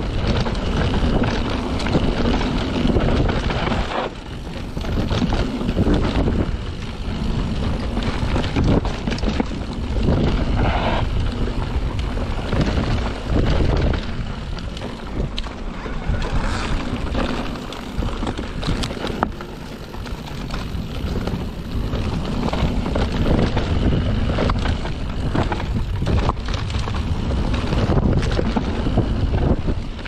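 Mountain bike descending a dirt singletrack: wind buffeting the microphone over the rush of tyres on packed dirt, with rattles and knocks as the bike runs over bumps.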